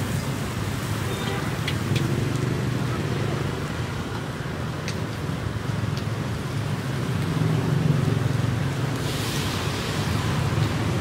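Steady low rumble of a busy street-side food stall with its gas burners lit. A few light metal clicks come through, and a brief hiss comes about nine seconds in.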